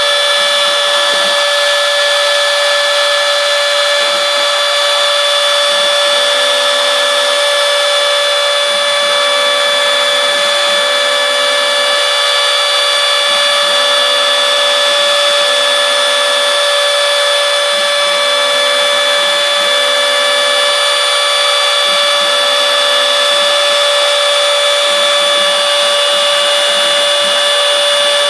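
Router spindle of a homebuilt CNC mill running with a steady high whine as it cuts florist foam, with a lower hum that switches on and off every second or two.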